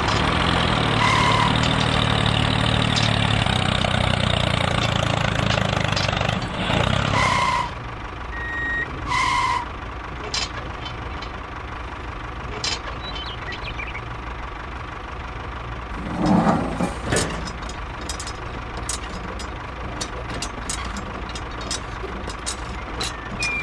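Tractor engine running steadily, then settling quieter after about seven seconds, with three short high beeps in the first ten seconds and scattered clicks, plus a brief clatter at about sixteen seconds.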